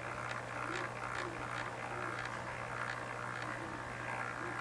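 HO-scale Tyco Golden Eagle C630 model diesel locomotive on a Hobbytown of Boston chassis crawling at its slowest speed: faint whirring of its motor and gearing with light ticks from the wheels, over a steady low hum. There is no sound decoder, so this is the mechanism's own running noise.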